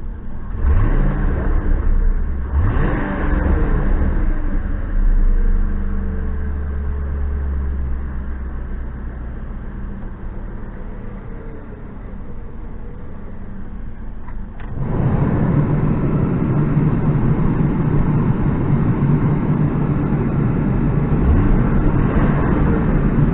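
Ford Crown Victoria Police Interceptor's 4.6-litre V8 blipped twice in quick succession and then settling back to idle, running on a freshly swapped cylinder 5 ignition coil after a P0305 misfire. About two-thirds of the way through, a louder steady noise comes in suddenly.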